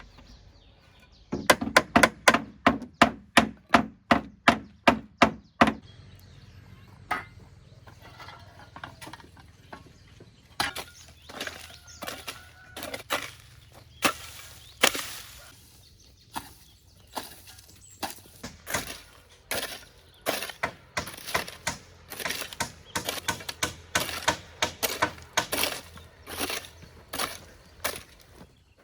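Repeated blows of a tool on wood. A fast run of about four strikes a second lasts a few seconds, then after a pause comes a longer, more irregular series of strikes.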